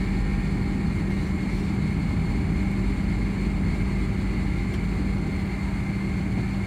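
Steady cabin noise of a Boeing 767-300ER taxiing, heard from a seat by the wing: the jet engines running at taxi idle as a constant low drone, with an even hiss of airflow over it.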